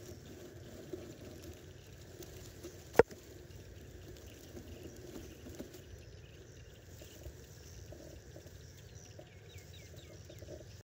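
Quiet outdoor field ambience with a low steady hiss, broken by a single sharp click about three seconds in. A few faint short high chirps come near the end.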